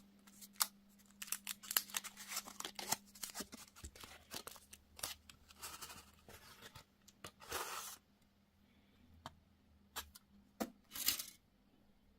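Candy packaging being opened: quick clicking snips and crinkles of plastic wrapper, then two longer tearing rips, one about halfway through and one near the end.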